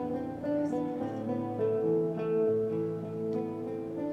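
Guitar music: slow plucked notes ringing over one another, the chord changing every second or so.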